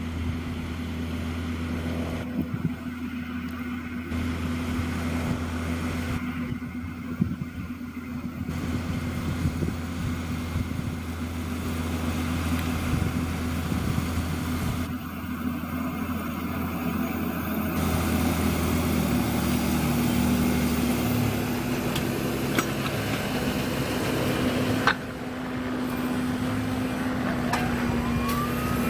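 John Deere 6210R tractor's six-cylinder diesel engine running steadily while pulling a six-furrow plough; the engine note shifts about two-thirds of the way through.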